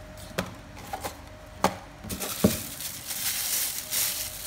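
Handling sounds on a wooden tabletop: a few sharp light clicks and knocks as a small fabric carrying pouch and its plastic bag are picked up and set down, then plastic crinkling and rustling over the last second and a half.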